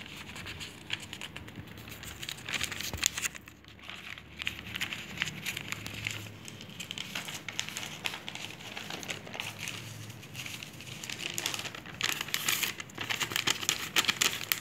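Sheet of newspaper being crumpled and twisted by hand: a dense, papery crackle that gets louder near the end.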